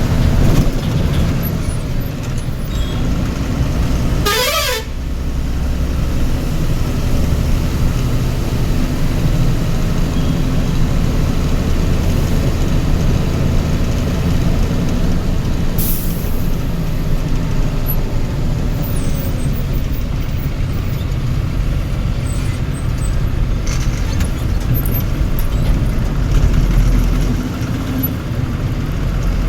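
Heavy vehicle engine running with a steady low rumble. A horn sounds briefly about four seconds in.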